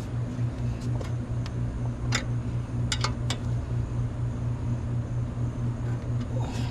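A machine running with a steady low hum that throbs evenly, with a few light clicks and taps over it.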